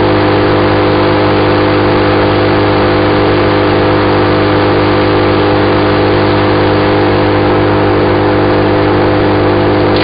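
BearCat CH8993H wood chipper running steadily with an empty hopper, its engine and spinning cutter giving an even, unchanging drone with no wood going through.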